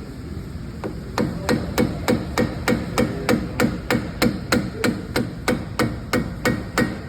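Hammer blows on metal, evenly spaced at about three a second, starting about a second in, each with a short metallic ring: someone is knocking a stuck part loose on a car's wheel hub assembly during a CV axle removal.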